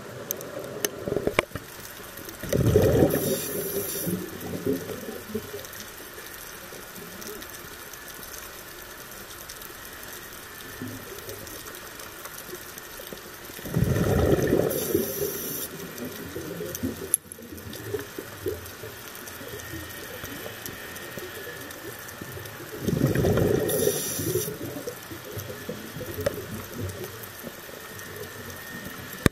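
Scuba diver's exhaled air bubbling out of the regulator underwater, three bursts roughly ten seconds apart, with a faint steady underwater hiss between breaths.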